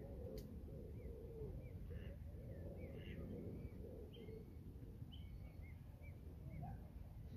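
Birds calling around the water: scattered short, high chirps throughout, with lower curving calls in the first half, over a steady low rumble.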